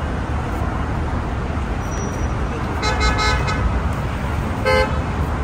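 Road traffic rumbling steadily, with a car horn tooting in a quick run of short blasts about three seconds in and another short horn blast near the end.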